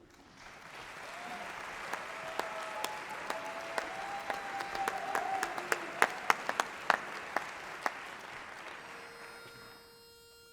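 Audience applauding and cheering, swelling up, peaking with a few loud close claps past the middle, then dying away. Near the end a single steady note begins to sound, a pitch pipe giving the quartet its starting pitch.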